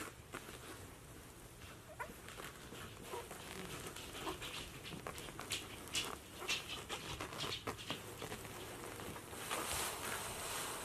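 A sleeping puppy's soft, irregular snuffling with light rustles against the bedding, over a steady hiss.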